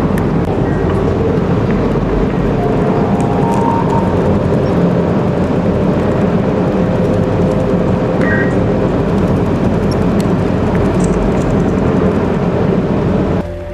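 Steady vehicle rumble with traffic noise, dense and loud throughout, with a few faint held tones in the middle; the sound changes abruptly near the end.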